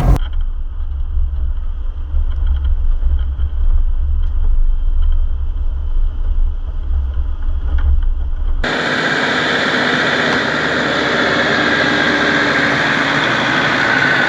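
Four-wheel-drive vehicle on the move: a low, steady engine drone. About eight and a half seconds in it cuts abruptly to a brighter, steadier run of engine and tyre noise.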